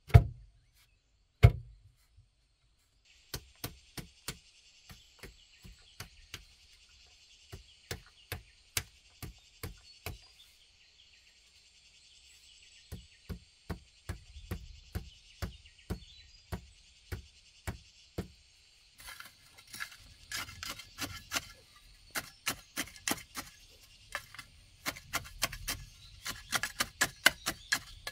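A wooden pole rammed down again and again to tamp soil around a post in a hole: short dull strikes about two a second, coming faster and heavier for the last third. A steady high buzz sits behind the strikes for stretches.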